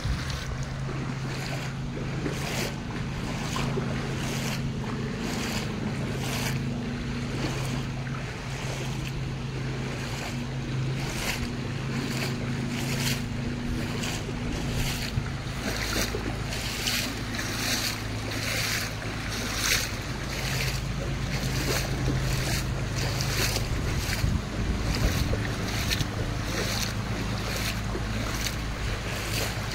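Rainwater running across a flooded road, with wind on the microphone and splashing footsteps wading through the shallow water about every two-thirds of a second.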